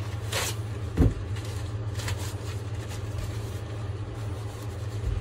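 Steady low mechanical hum, with a single sharp knock about a second in and a couple of brief rustles.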